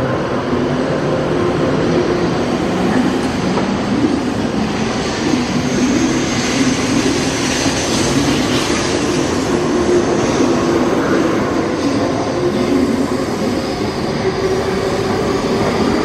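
N700-series Shinkansen pulling out of the station and gathering speed past the platform: a steady rumble of wheels and cars going by, with a faint electric motor whine over it.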